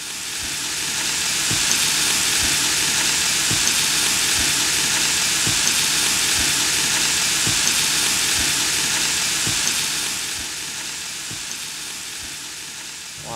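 Sizzling hiss like food frying in a pan. It swells in over the first two seconds, holds steady, and eases off from about ten seconds in, with a soft low thump about once a second.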